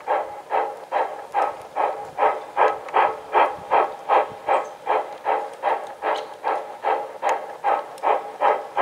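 Model steam locomotive chuffing at a steady pace, about two and a half even chuffs a second.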